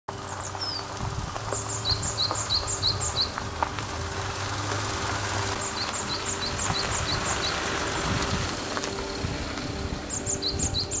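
A Land Rover Discovery 4 driving slowly along a dirt track, its engine a low steady rumble. Over it, a songbird sings a quick phrase of chirps alternating between a high and a lower note, three times.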